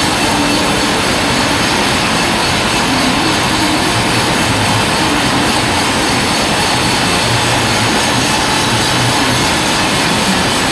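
Sawmill log band saw running steadily with a loud, even noise.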